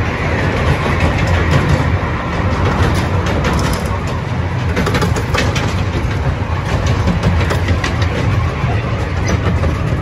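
Currumbin Express sightseeing train running along its track: a steady low rumble of the train and its wheels, with faint scattered clicks.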